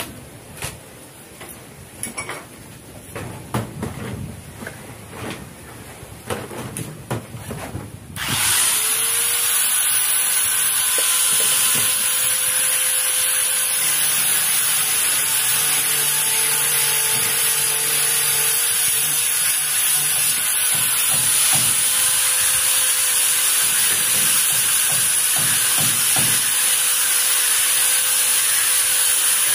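Light knocks and handling clatter, then about eight seconds in an angle grinder starts up and runs steadily with a high whine, cutting PVC pipe.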